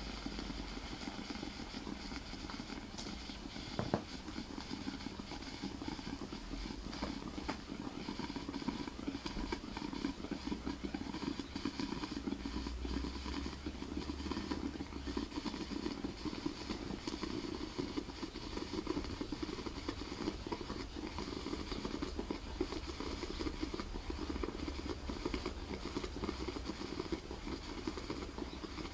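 Oxalic acid boiling inside the heated copper tube of a homemade oxalic acid vaporizer: a steady bubbling crackle that grows stronger partway through, as the acid melts and boils before it sublimates. A single sharp click comes about four seconds in.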